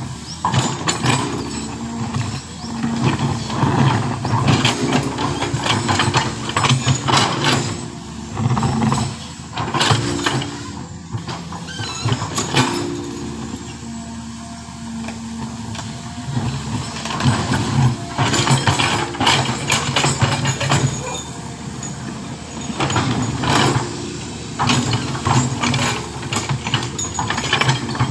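Heavy diesel machinery working: engine running and revving up and down in steps, with repeated short clattering knocks.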